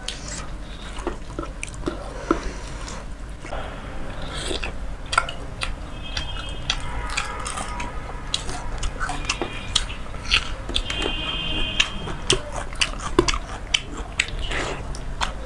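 Close-up eating sounds: wet chewing and lip-smacking of watery soaked rice and fried hilsa fish, with many sharp mouth clicks. Fingers squish and mix the wet rice in the bowl between mouthfuls.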